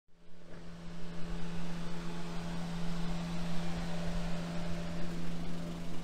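A steady low mechanical hum, holding one pitch, over an even wash of street background noise.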